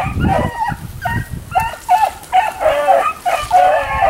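Beagle baying while running a cottontail rabbit's trail: a rapid, unbroken string of short, pitched bawls, two or three a second.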